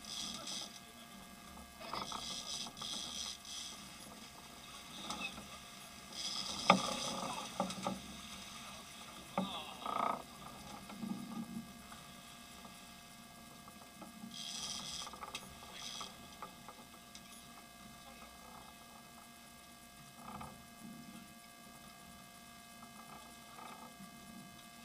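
Big-game trolling reel's drag clicker buzzing in short runs as a hooked fish pulls line off, four times, with a sharp knock about seven seconds in. A faint steady hum runs underneath.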